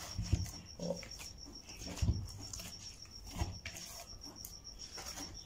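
Hands kneading soft, oiled doughnut dough in a plastic bowl: faint squelches and soft bumps a second or so apart, over a faint, steady, high-pitched pulsing tone.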